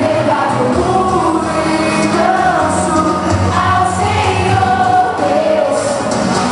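Christian pop song played loud, with sung vocals over a steady beat.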